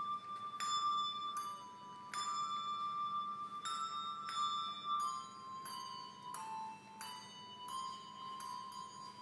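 Handbells rung one after another, playing a slow melody: a new struck note about every half second to second, each bell ringing on under the next.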